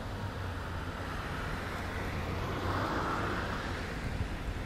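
Passing road traffic: a vehicle's noise swells to a peak about three seconds in and fades, over a steady low hum.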